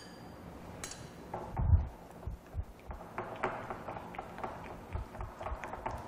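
A metal spoon clinks against glass about a second in, followed by a soft thump. A silicone spatula then stirs white-chocolate glaze in a glass bowl with small, light scrapes and taps.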